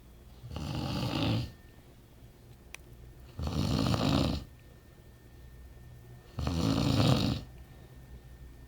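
A man snoring in his sleep: three long, rough snores about three seconds apart, each lasting about a second, with quiet pauses between them.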